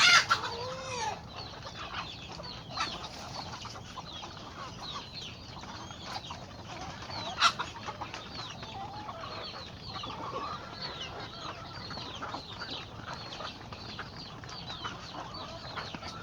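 Chickens calling: many short, high, falling chirps keep up throughout, with a louder call right at the start and another sharp call about halfway through.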